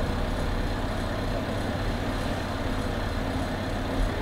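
Steady low rumbling drone with a hiss over it, unchanging, with one soft low bump about four seconds in.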